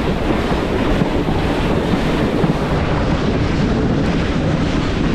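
Loud, steady rumble of a moving train, with wind buffeting the microphone.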